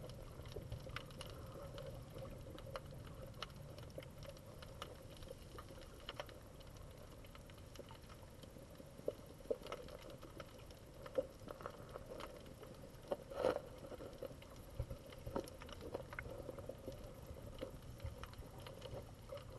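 Faint underwater ambience picked up by a diver's camera: a low steady hum with scattered small clicks and ticks, and a few louder clicks in the second half.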